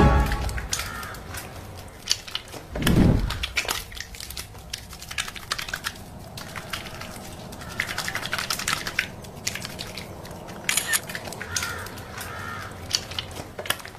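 Soapy hands being rubbed together in a twenty-second hand wash: irregular wet squishing and small clicks, with one louder low whoosh about three seconds in.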